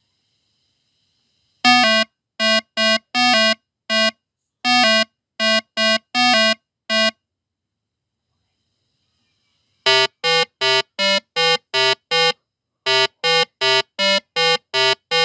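Buzzer-like alarm beeping in two runs of short, harsh beeps, about two a second, with a silent gap of about three seconds between the runs.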